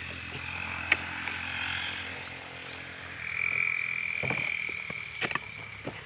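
Small animals calling, with a steady high trill that starts about three seconds in and holds to the end; a few light knocks.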